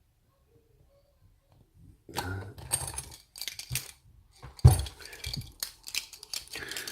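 Metal clinking and clattering from the opened padlock and picking tools being handled, starting about two seconds in, with one sharper knock near the middle.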